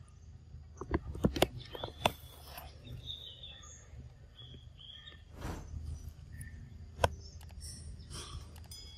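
Outdoor forest ambience: a steady low rumble with a few faint bird chirps, broken by a quick cluster of sharp clicks about a second in and a single sharp click about seven seconds in.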